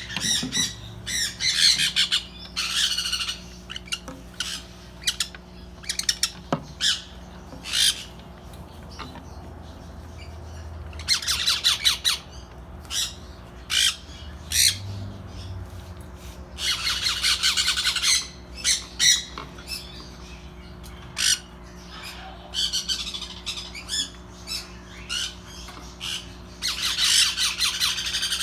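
Parrots squawking: repeated harsh screeches, some short and sharp, others in rapid bursts lasting a second or two, over a steady low hum.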